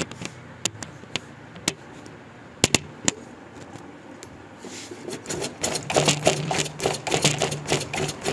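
Honda motorcycle front forks being pumped up and down under a rider's weight. There are a few sharp clicks early on, then a rapid run of light clicks and rattles from about five seconds in. The rebuilt shocks make no knocking; the slight rattle is from a loose handlebar.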